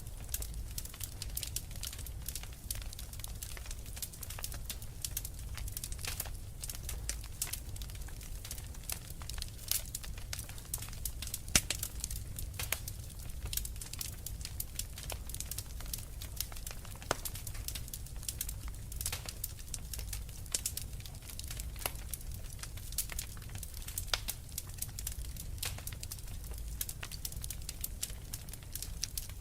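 Wood fire crackling: dense, irregular pops and snaps over a low steady rumble, with one sharper pop about twelve seconds in.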